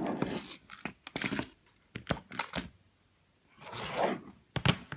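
Hands handling small plastic tablet parts: a scatter of light clicks and brief scrapes and rustles, with a short quiet gap in the middle.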